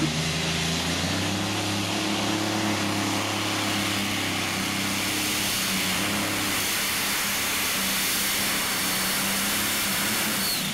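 Modified-class pulling tractor's supercharged engines running flat out under load as it drags the weight sled. The engine note is loud and steady, held at one pitch over a dense exhaust rush.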